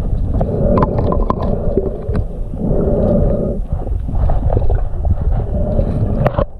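Muffled rumble of water moving around the camera, rising and falling in swells, with scattered small clicks and knocks.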